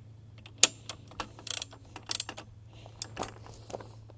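Irregular metallic clicks and clanks of chainsaw mill hardware and tools being handled during assembly, with one sharp knock about half a second in.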